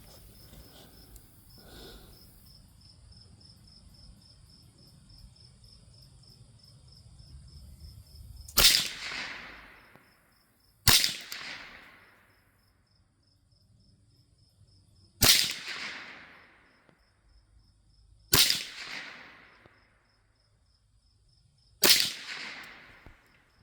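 Mendoza Puma .22 LR rifle firing five single shots of Aguila ammunition, the first about eight seconds in and the rest two to four seconds apart, each crack trailing off in a short echo.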